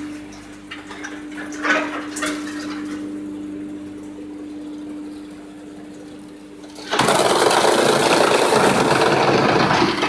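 Pallet wood chipper with a chain-plate feeder running with a steady hum and a few knocks as pallets ride the conveyor. About seven seconds in, a sudden, much louder dense grinding noise starts and carries on: the pallet wood being crushed.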